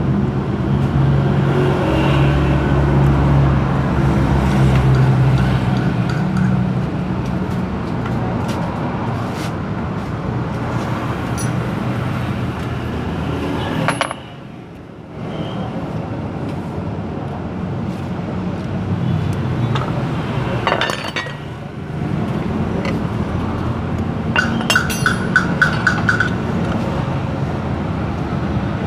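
An engine idles steadily nearby, dropping away briefly about halfway through, while metal tools click and clink against the scooter's CVT drive pulley, with a quick run of clinks a few seconds before the end.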